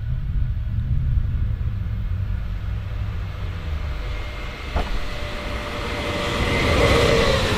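Stadler FLIRT electric multiple unit approaching on the track. Its running noise, with a faint steady electric whine, grows louder over the last couple of seconds above a steady low rumble. A single click sounds about five seconds in.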